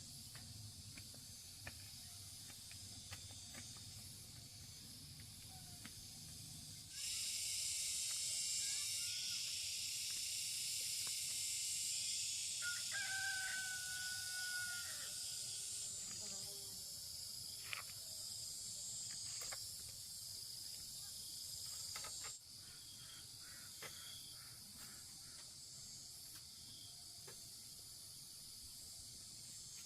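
A rooster crows once near the middle, over a steady high-pitched insect chorus. The insect chorus gets suddenly louder about seven seconds in and drops back about two-thirds of the way through. Scattered light clicks and knocks are heard throughout.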